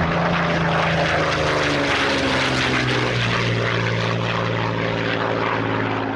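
Propeller aircraft flying past, its engine note dropping in pitch about two seconds in as it passes, then fading near the end.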